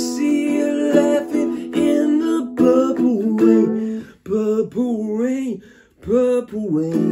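Mele ukulele strummed in chords, with a man singing over it; the voice comes in about two and a half seconds in with wavering held notes.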